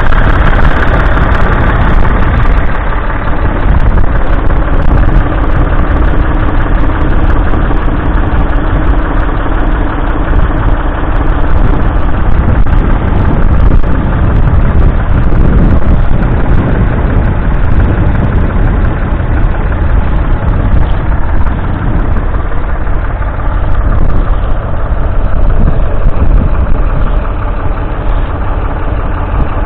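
Ford 3000 tractor's 2.9-litre three-cylinder diesel engine running steadily.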